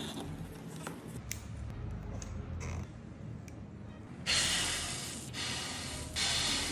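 Two bursts of rushing air, like hard breaths or blowing, about a second long each. The first, about four seconds in, is the louder; the second comes near the end. Neither carries a horn-like tone.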